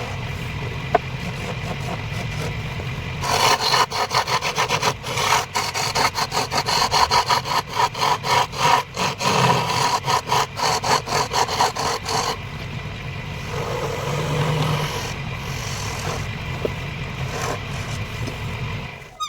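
Wood lathe running with a tool scraping against the spinning wood workpiece. About three seconds in the scraping turns loud, in rapid uneven strokes, and eases off after about twelve seconds. The sound cuts off suddenly at the end.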